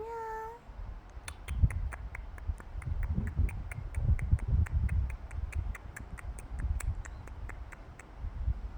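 A cat's short meow, rising slightly in pitch. Then a steady run of sharp clicks, about four a second, lasting several seconds.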